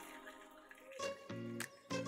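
Faint crackling and sputtering of marinated quail pieces frying in hot oil, with a few sharp pops. Soft background music comes back in about a second in.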